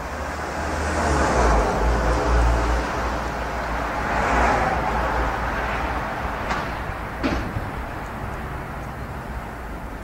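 Road traffic noise that swells twice as it runs, with wind rumbling on the microphone and two short clicks about seven seconds in.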